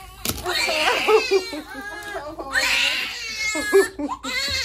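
Two-month-old babies crying hard from their vaccination shots in the leg: long, high wails, each about a second and a half, broken by short gasps for breath.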